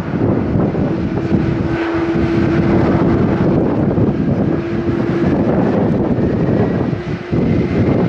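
Boeing 767 airliner's jet engines running at high power as it rolls along the runway: a dense, loud rumble mixed with wind buffeting the microphone. A faint high whine rises slowly in pitch through the second half.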